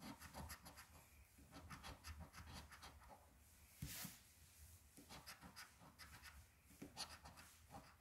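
Coin scratching the latex coating off a scratch-off lottery ticket: faint, quick scraping strokes in short bursts with brief pauses between them.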